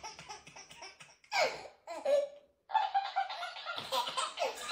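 Toddler laughing and giggling in short bursts.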